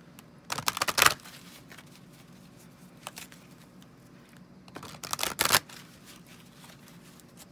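A deck of oracle cards (Notes from the Universe) being shuffled in two short bursts of rapid flicking, the first about half a second in and the second about five seconds in.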